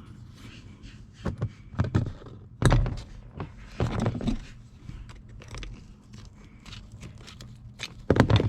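Knocks, clicks and scraping as a wiring connector is worked loose and slid off an old floor-mounted headlight dimmer switch. There are a few separate strokes, the loudest a little under 3 seconds in and another near the end.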